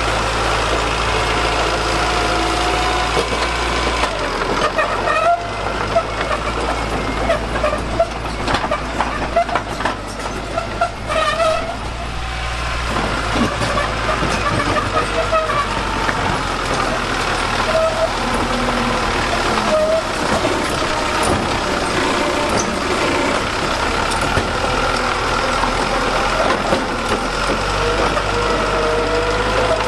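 Diesel engine of heavy construction machinery running steadily, with a run of sharp knocks and clanks from about four to thirteen seconds in.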